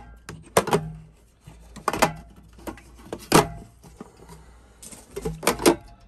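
Metal Campingaz gas canisters knocking and clinking against each other and the steel drawer as they are set in place: about half a dozen sharp knocks, several ringing briefly.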